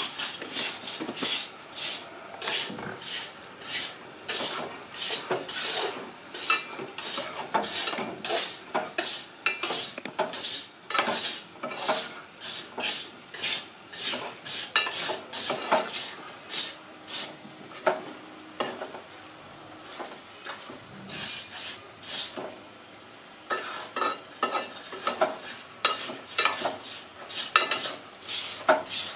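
A steel spoon stirs and scrapes chopped mutton, onions and spice paste in an aluminium pot over a gas flame, making repeated quick scrapes and clinks against the metal with a light sizzle under them. The stirring stops briefly about two-thirds of the way through, then picks up again.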